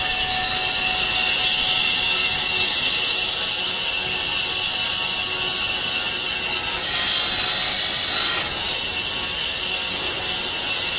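Small vertical band-knife cutting machine running, its blade slicing cellulose sponge sheets fed along the fence: a steady high hiss of machine noise that shifts briefly about seven seconds in.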